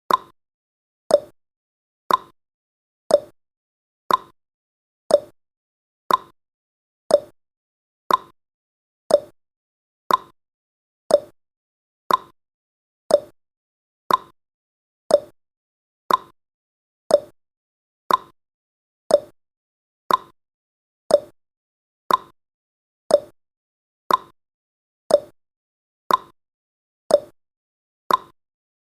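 A countdown timer's clock-style ticking sound effect, one short tick every second, alternating higher and lower like a tick-tock.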